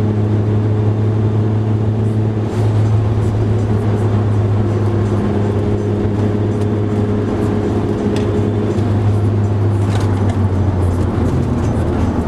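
Car engine running at a steady pace, heard from inside the cabin as a constant drone, with a brief dip and slight change of note about two and a half seconds in.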